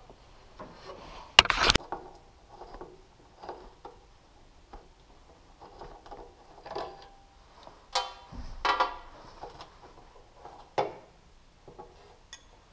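Scattered clicks and knocks of hand tools and small parts being handled during wiring work, with a sharp clack about one and a half seconds in and another cluster around eight seconds.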